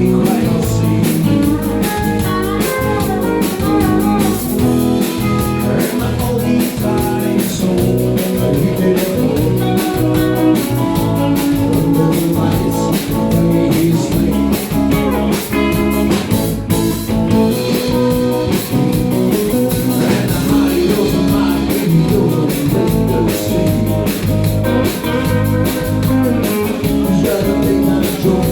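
A live country band playing: guitar over bass and a drum kit with a steady beat.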